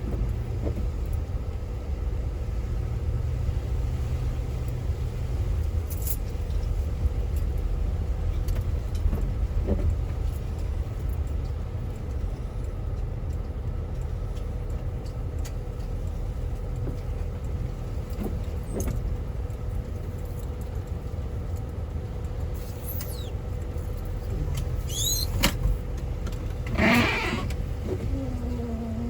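Steady low road and tyre rumble inside a moving car's cabin on a wet, slushy highway. Near the end, a brief louder burst of higher sweeping sounds and a short gliding tone.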